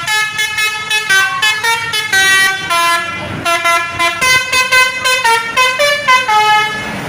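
Bus 'basuri' telolet horn, a flute-like multi-tone musical horn, playing a quick tune of short notes that step up and down in pitch.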